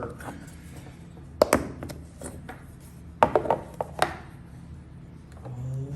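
Handling of a small zirconium fidget slider: a few sharp clicks and knocks, in a cluster about a second and a half in and another from about three to four seconds in.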